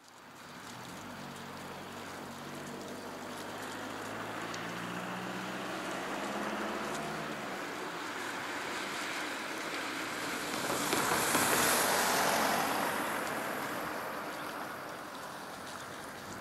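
A car passing on the road: a low engine hum, then tyre noise that swells to a peak about eleven seconds in and fades again, over a steady windy hiss.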